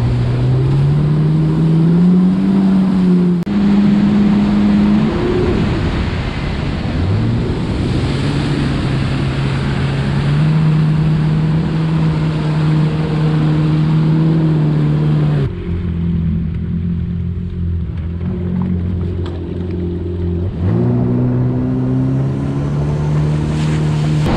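Yamaha FX Cruiser WaveRunner's four-stroke engine running at speed over the rush of water and spray from the hull. The engine pitch rises and falls several times with the throttle. The spray hiss drops away for a few seconds past the middle and then comes back.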